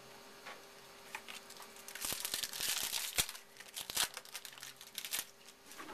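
Wrapper of a 2012 Press Pass football card pack crinkling and tearing as it is opened by hand: a run of sharp crackles, loudest about two to three seconds in, thinning out to scattered clicks before the end.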